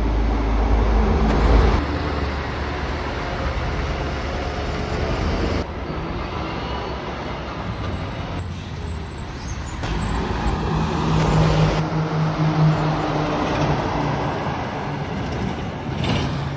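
Heavy diesel trucks driving past one after another, some pulling low-loader trailers, with engine rumble and tyre noise on the road. The sound changes abruptly several times as one pass cuts to the next.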